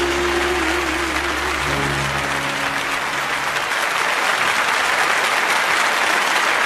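A large concert audience applauding over the band's final held chord, which dies away about three seconds in, leaving the applause alone.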